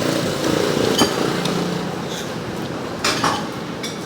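Clatter of dishes and metal utensils at a street food stall, with a sharp knock about a second in and a louder clatter near the end.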